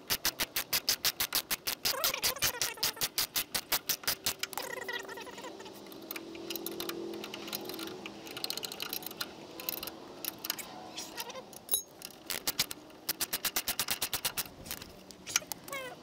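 Hand ratchet clicking rapidly as bolts are run in on a car's front brake caliper and hub. It comes in two long runs, one at the start and another about three-quarters of the way through, with scattered clicks between.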